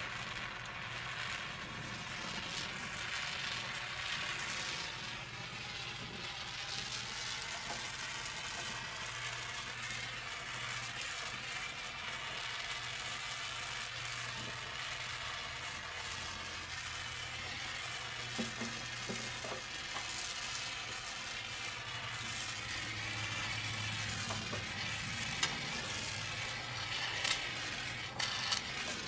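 Handheld gas torch burning with a steady hiss while it heats the radiator tank's old solder seam to desolder it. A few sharp metal clicks and taps come in the second half.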